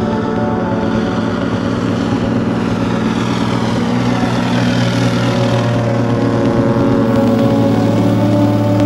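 Single-engine floatplane on its takeoff run across the water, its piston engine and propeller at full power in a steady drone, with a shift in pitch about seven seconds in.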